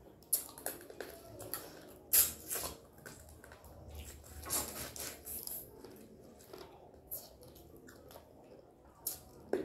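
Eating boiled crab: chewing and biting into the shell, with irregular sharp cracking snaps, the loudest a little after two seconds in.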